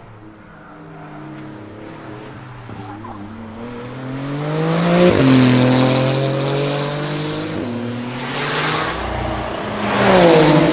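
Porsche 991 GT2 RS twin-turbo flat-six accelerating past at full throttle, its pitch rising and then dropping sharply as it goes by about five seconds in. Near the end a second GT2 RS passes with another loud rise and fall.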